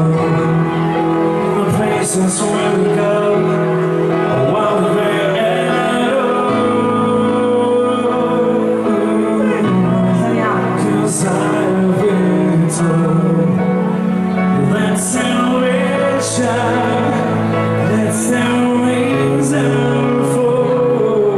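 A man singing into a handheld microphone over amplified music, loud and steady throughout.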